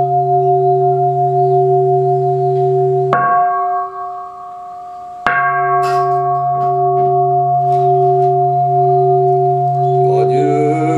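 A large Buddhist bowl bell ringing with a long, slowly pulsing hum. It is struck sharply twice, about 3 and 5 seconds in, and rings on after each strike. Voices chanting come in near the end.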